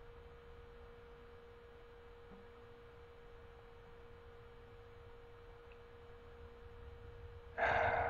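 A faint steady hum on one constant pitch, with a low rumble beneath it. Near the end comes a breathy rush of about a second: a man breathing out.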